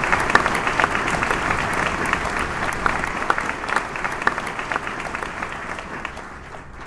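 Audience applause, a dense patter of many hands clapping, gradually fading away over the last few seconds.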